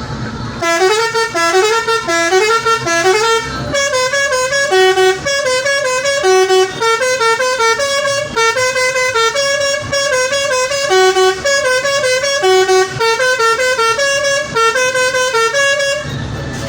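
Basuri V3 telolet multi-tone bus horn playing a fast melody of rapidly switching notes, starting about a second in and cutting off near the end. It opens with a short rising phrase repeated a few times, then moves into a longer tune.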